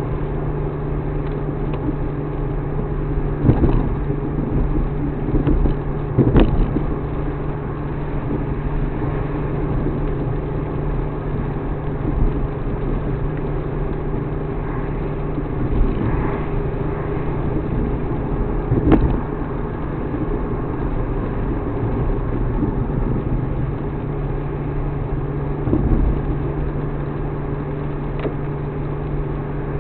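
Suzuki Alto Works HA36S running steadily on the road, heard from inside the car, with a few isolated knocks standing out over the engine and road noise.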